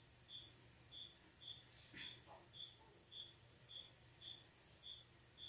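Crickets chirping faintly: a steady high trill with a separate, lower chirp repeating evenly just under twice a second.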